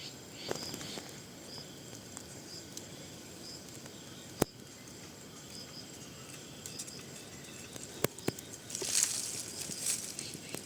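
Quiet rural outdoor ambience with faint, irregular high chirping, broken by a few sharp clicks about four and eight seconds in and a brief rustling noise near the end.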